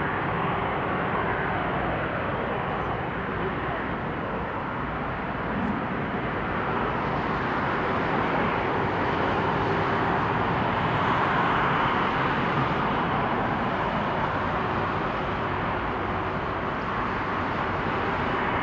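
Airbus A330-243's Rolls-Royce Trent 700 turbofans running at taxi power: a steady jet rush and hum that swells a little around the middle as the airliner rolls past.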